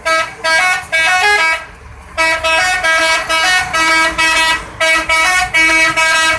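Indonesian bus 'telolet' horn, a multi-tone musical air horn, playing a quick tune of stepping notes. It breaks off briefly about a second and a half in, then plays on.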